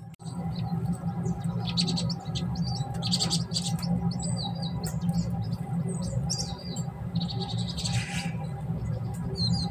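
A flock of Japanese tits calling: many short, high chirps and trills, overlapping and scattered throughout.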